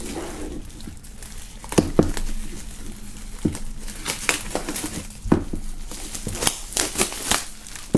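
Clear plastic shrink-wrap film being peeled and pulled off a cardboard vinyl box set, crinkling and crackling unevenly with several sharp snaps.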